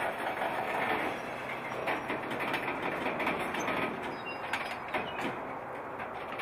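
Covered hopper cars rolling slowly past at close range in yard switching: a steady rumble of steel wheels on rail with scattered clicks and knocks, several close together about four to five seconds in.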